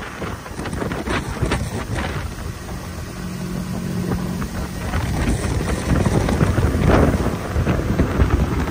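Wind buffeting the microphone over the steady running of a Hurricane SS 218 deck boat's outboard motor at cruising speed. A steady low engine drone comes through plainly for a couple of seconds in the middle.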